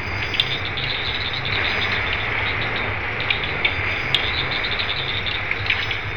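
Insect chorus of many short chirps and ticks over a steady low rumble.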